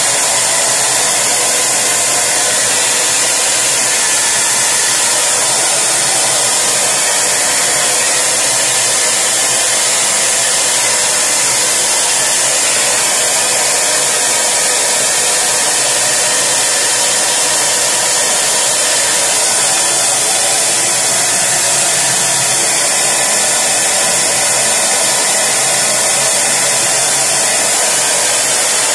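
Steady, loud rushing noise of an electric fan or blower running continuously without change, like a hair dryer.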